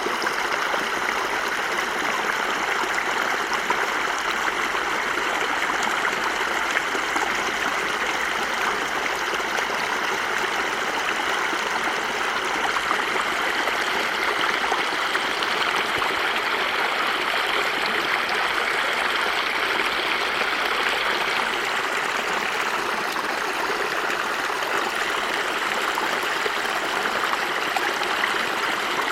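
Stream of water running steadily over rocks, a continuous rushing and babbling flow in winter.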